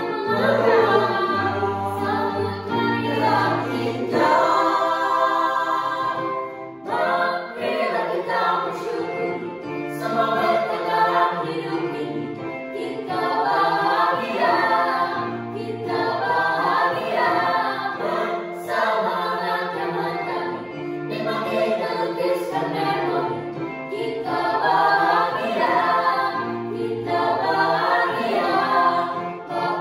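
A mixed choir of teenage boys and girls singing in several parts, with low held notes underneath the melody.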